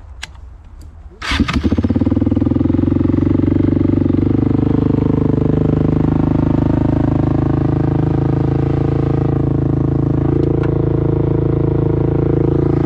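ATV (quad) engine starting: a few clicks, then it catches about a second and a half in and runs steadily.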